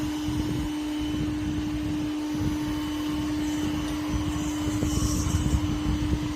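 Bardi smart robot vacuum running: a steady motor hum over an uneven low rumble, with a brief hiss about five seconds in.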